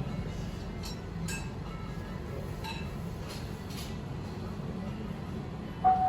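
Light clinks of tableware, a handful of separate small taps, over a steady low hum of the ramen shop. A short clear tone starts sharply near the end.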